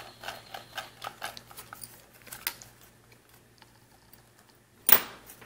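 Light plastic clicks and taps as the opened plastic housing of a pan/tilt IP camera and its parts are handled, thinning out after about two and a half seconds, then one loud sharp clack near the end.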